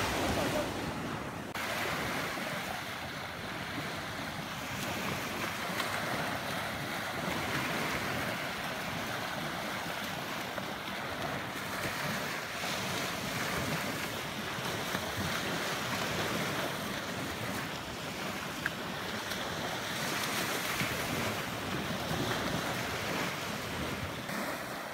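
Small waves washing up and breaking on a sandy shoreline, a steady surf wash, with some wind.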